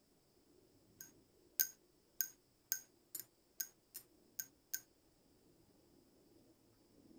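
Hobby knife blade scraping around the emblem on an antique metal lighter: about ten sharp metallic clicks, roughly every half second, each with a short ring. The clicks stop about five seconds in.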